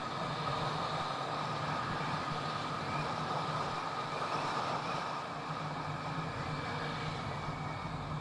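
Bajaj Dominar motorcycle's single-cylinder engine running steadily at cruising speed, with road and wind noise.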